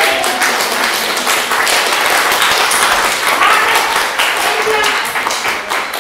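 A small group of people applauding: many overlapping hand claps, with a few voices mixed in.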